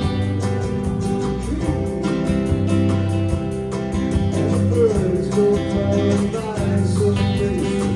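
Live band music played through a PA, led by guitar over bass and a steady beat.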